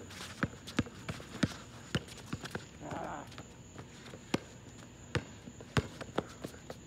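Basketball dribbled on an outdoor asphalt court: sharp bounces at an uneven pace for the first couple of seconds, a short lull, then more bounces from about four seconds in, with sneaker steps on the court.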